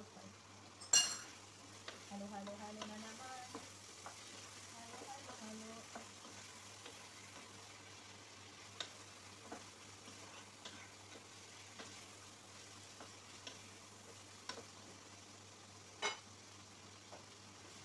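Chicken and carrots frying in a pot, stirred with a spoon, with a quiet sizzle and the scrape of the stirring. A sharp tap of the spoon on the pot about a second in is the loudest sound, with a few fainter taps later.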